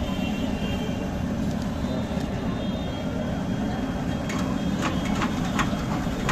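Steady low background rumble, with a few light clicks between about four and six seconds in.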